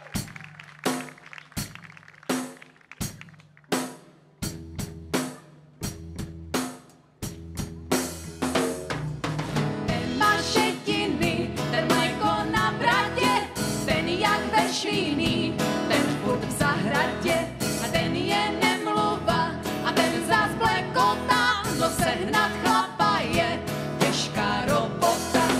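Live folk band starting a slow, earthy couple-dance song: single drum beats about one every 0.7 seconds, then about eight seconds in fiddle, guitar and the rest of the band come in together.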